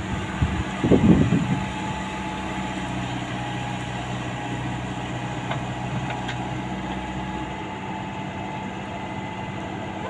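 Komatsu PC75UU mini excavator's diesel engine running steadily as its hydraulic arm folds in, with a brief loud burst of noise about a second in.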